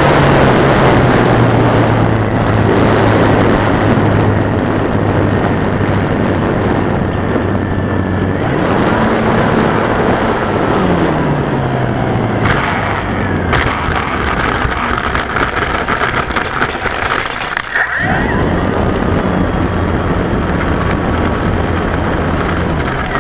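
Brushless electric motor and propeller of an E-flite Timber RC plane, heard from on board with wind rush. It runs as a steady hum that shifts in pitch with the throttle, then rattles and clatters about halfway through as the plane touches down and rolls over rough grass. Near the end the motor drops out for a moment and comes back at low throttle with a thin high whine.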